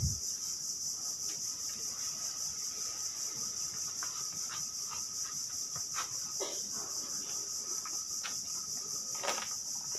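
Steady, high-pitched chorus of night insects, such as crickets, with a few light clicks and knocks; one louder knock comes about nine seconds in.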